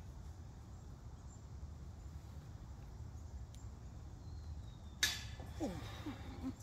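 Low outdoor background with a steady low rumble. About five seconds in comes a single sudden sharp knock with a short rattle after it, followed by a few brief gliding tones.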